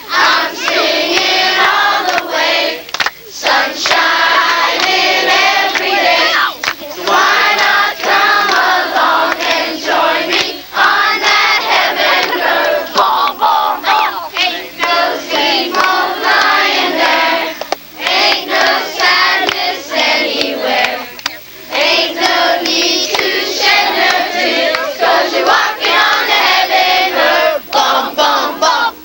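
A group of children and women singing together loudly, many voices at once.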